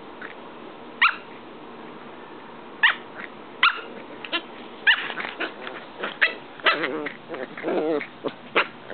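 Corgi puppies play-fighting, giving short, high yips and barks. They are sparse at first and come thick and fast in the second half.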